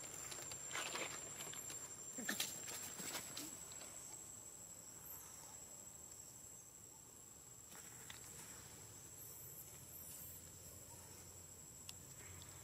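Faint outdoor ambience: a steady high insect drone runs throughout. Over it come rustling and light steps in grass and dry leaves during the first three seconds or so, and a few faint high chirps later.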